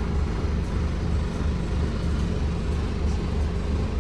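Steady low hum of a motor vehicle running, with an even background rumble.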